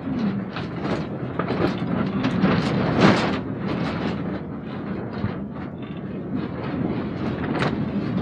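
Rumble and rattle of a moving vehicle, with irregular knocks and clatter and one louder clatter about three seconds in.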